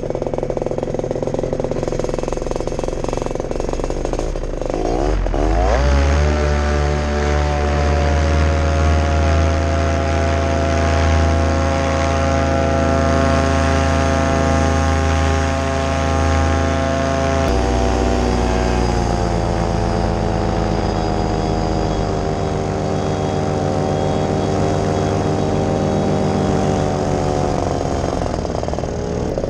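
Paramotor engine and propeller: running low at first, then revving up about five seconds in to full power for the takeoff run and climb. It holds a steady drone, with an abrupt shift in pitch partway through and slow small rises and falls later.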